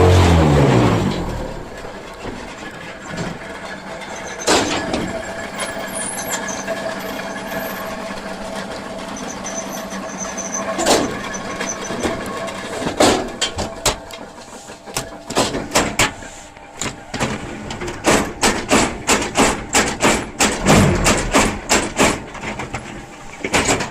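Concrete block press for pumice blocks running: a steady mechanical hum with occasional sharp clanks, then a quick run of repeated knocks over the last several seconds.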